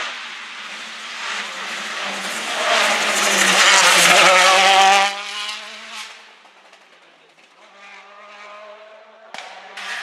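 Rally car engine at speed passing close by: it builds to a loud peak about three to five seconds in, drops away sharply just after, then is heard faintly pulling away again near the end.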